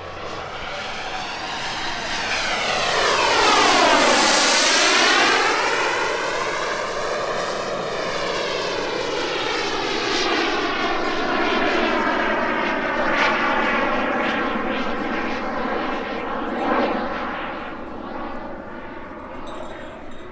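EvoJet 220 turbine of a giant-scale RC Fiat G91 model jet running in a flyby. It swells to its loudest about four seconds in as the jet passes, with a sweeping whoosh, then slowly fades as it flies away.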